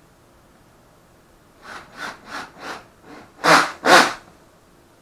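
Seven short scraping strokes in quick succession, about three a second, the last two the loudest, as wooden pieces and a plastic corner clamp are handled and worked on a workbench.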